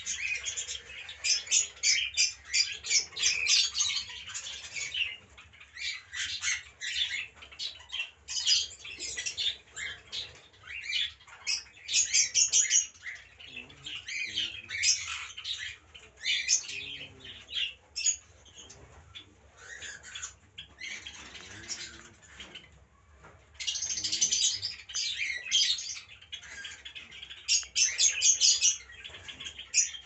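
Mixed flock of cockatiels and budgerigars chirping and squawking, a dense chatter of short high calls, busiest in the first five seconds and again near the end, thinner in between.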